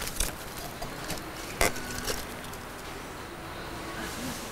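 Steady background noise of a large shop hall, with a few short clicks and knocks, the loudest about one and a half seconds in.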